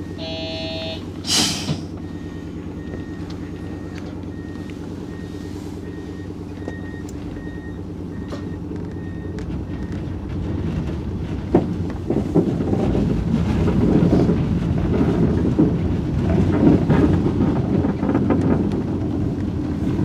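JR 113 series electric train pulling away, heard from inside the front cab. A short tone at the start, a brief hiss of air about a second in, then a steady low hum with a faint high beep repeating quickly. Over the second half, wheel and track noise grows louder as the train gathers speed.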